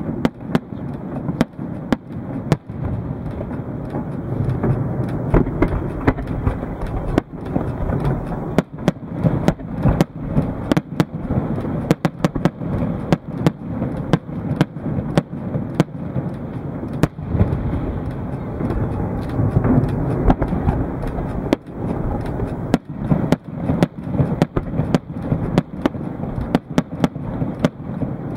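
Fireworks display with aerial shells bursting one after another: a continuous low rumble of booms, with many sharp bangs throughout.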